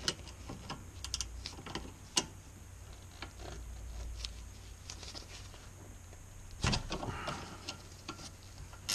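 Spanners clicking and clinking against a rear brake caliper's steel bolt and slider collar as the 13 mm caliper bolt is worked loose while a 15 mm spanner holds the slider's hex collar. The sharp metal clicks come at irregular intervals, with a denser run about seven seconds in.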